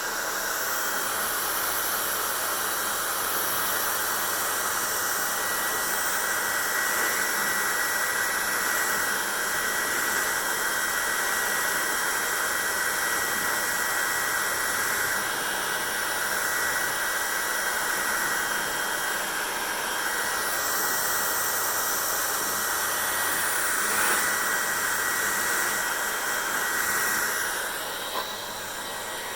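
Hair dryer blowing steadily: a rush of air with a thin, steady whine. It drops a little in level near the end.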